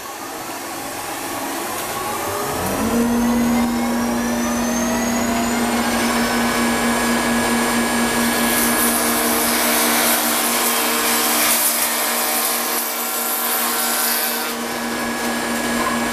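Shopsmith Mark 7's variable reluctance motor spinning up toward 10,000 rpm with a rising whine over the first few seconds, then running at a steady high speed. From about eight to fourteen seconds in, the shaper cutter adds a loud rush of cutting noise as it cuts a decorative edge along a board.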